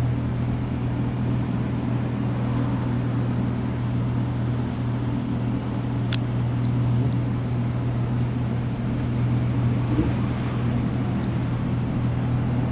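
Steady low machine hum, like a running fan or motor, with one sharp click about six seconds in as the small carburetor is handled.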